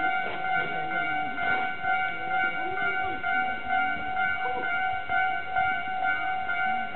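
Japanese railway level-crossing warning bell ringing steadily, a repeating electronic ding, as the crossing is closed for an approaching train.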